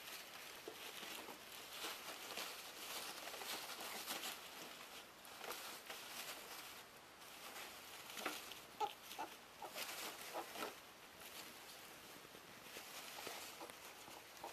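Faint rustling of shredded-paper bedding as ferrets scrabble and wrestle in a wire cage, with a cluster of short, sharp sounds around the middle.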